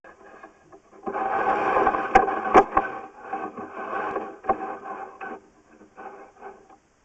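Sewer inspection camera head and push cable scraping and rubbing along the inside of a drain pipe as it is pushed back through the trap, with a few sharp knocks a little over two seconds in. The scraping starts about a second in and dies away after about five seconds.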